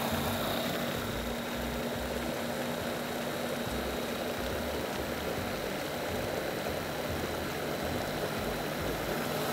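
Electric food processor running steadily at full speed with a high, even whine, puréeing mulberries with honey and water.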